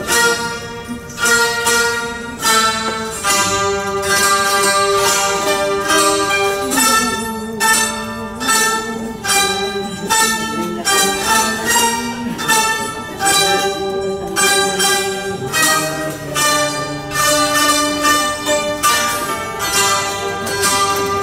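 Taishōgoto ensemble (Japanese keyed zithers) playing a slow melody together, each note sounded as a quick run of repeated plucks.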